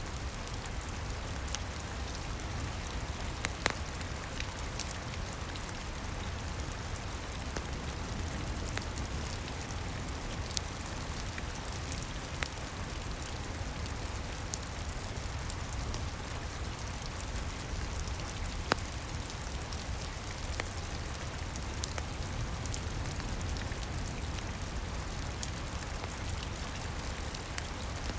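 Steady rain with scattered sharp pops from a crackling wood fire.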